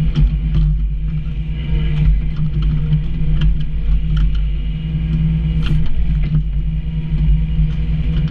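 Komatsu PC28 mini excavator's diesel engine running steadily, heard from the operator's seat while the boom and bucket are worked on the hydraulic levers. Scattered light clanks and knocks sound over the drone.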